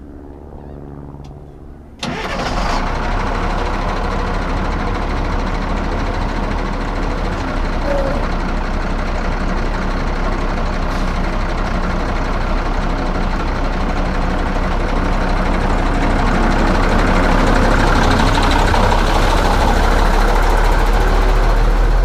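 Cummins 6CTA8.3 turbocharged inline-six diesel of an M939A2 6x6 military truck starting abruptly about two seconds in and running steadily. It gets louder over the last few seconds as the truck moves off.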